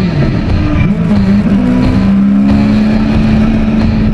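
Rage Motorsport off-road buggy's engine heard from the open cockpit while lapping a race track. The engine note falls at the start, wavers for about a second, then climbs and holds a steady pitch for the rest.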